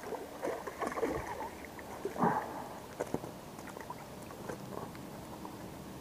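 Water splashing in short, irregular bursts as a hooked smallmouth bass thrashes at the surface, with the loudest splash about two seconds in.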